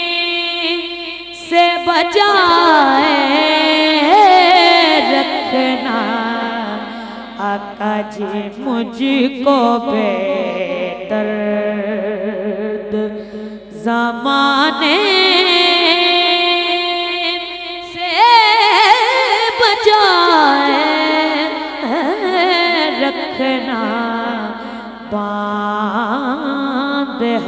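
A boy's voice singing a naat into a microphone: long, ornamented melodic lines with sliding, wavering held notes, breaking off briefly between phrases.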